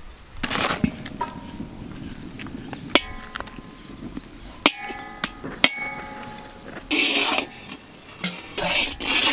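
A metal spatula strikes a large iron kadai three times, each hit a sharp clank that rings on briefly. Near the end come bursts of scraping as it works melting butter around the hot pan.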